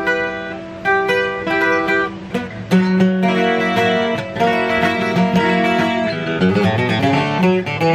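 Takamine JJ 12-string acoustic guitar being played: picked melody notes mixed with strummed chords. The playing gets louder and busier about three seconds in, and there is a quick run of notes near the end.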